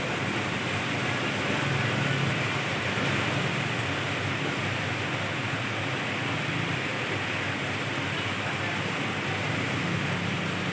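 Steady rain with a constant hiss, and the low rumble of traffic on a wet road beneath it.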